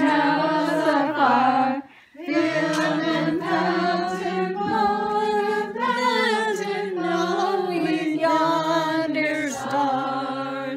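Several people singing together without accompaniment, holding long notes, with a short break about two seconds in.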